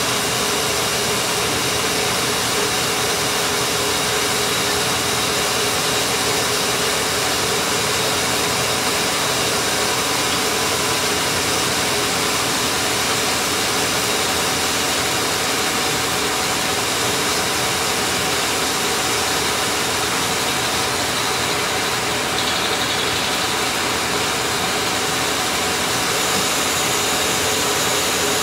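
Steady hum and hiss of running machinery, with no change in level or pitch.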